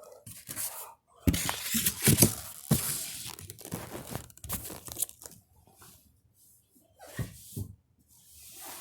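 Medication shipping packaging being handled by hand: irregular bursts of crinkling and rustling, busiest in the first few seconds, then a few scattered handling noises.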